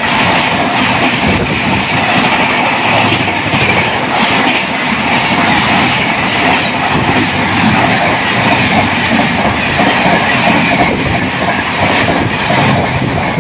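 Express train passing close by at speed: a loud, steady rush of coach wheels on the rails with a clickety-clack over the rail joints.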